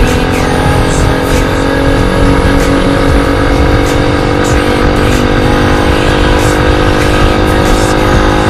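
97cc four-speed motorized-bicycle engine running steadily under way, its pitch holding level, with a rough rush of wind noise underneath.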